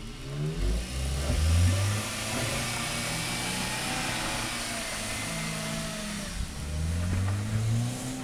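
Toyota Corolla 4WD's engine pulling under acceleration, its pitch rising over the first two seconds, holding steady, then rising again near the end, over a steady hiss.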